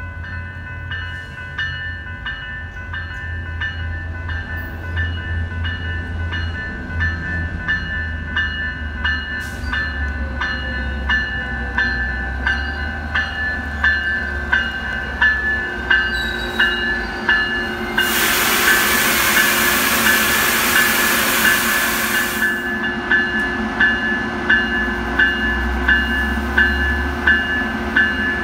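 Level-crossing warning bells ringing steadily, about one and a half strikes a second, over the low rumble of a Coaster push-pull commuter train rolling into the station. About two-thirds through, a loud hiss of air from the train lasts about four seconds.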